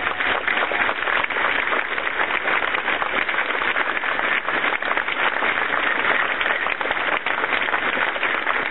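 A large crowd applauding steadily: dense, even clapping from many hands.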